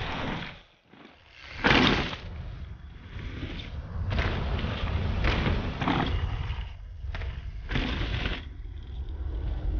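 A steady low rumble with a run of short rushing whooshes, the loudest about two seconds in, from a mountain bike riding and jumping through a burning forest.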